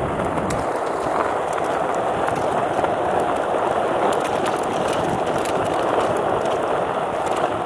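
Skateboard wheels rolling steadily over an asphalt path, with light clicks as they pass over cracks and debris.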